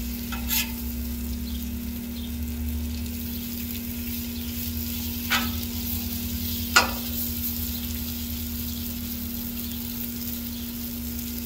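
Hash browns and cheese sizzling on a Blackstone flat-top griddle, over a steady low hum. A metal spatula scrapes and knocks on the steel top three times; the loudest knock comes about two-thirds of the way in.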